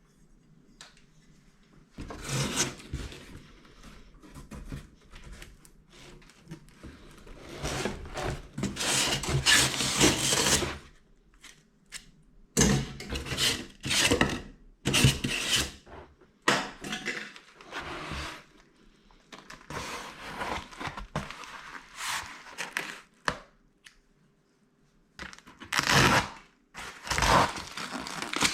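Packaging and parts being handled by hand: irregular rustling, rubbing and scraping with occasional sharp knocks, in bursts separated by short pauses.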